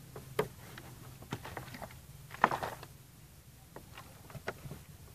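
Plastic bottles and containers being handled: scattered light clicks and knocks, with one sharper knock about halfway through.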